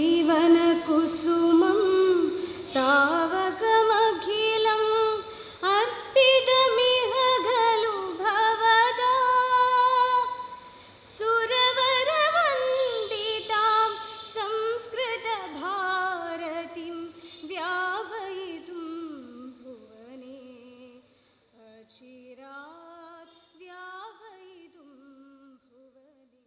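A woman singing a slow, melodic song with held, wavering notes, growing quieter in its last few seconds and fading out.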